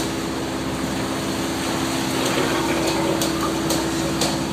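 Fishing boat's engine running steadily under way, a constant hum over the rushing wash of the wake and wind, with a few short sharp clicks in the second half.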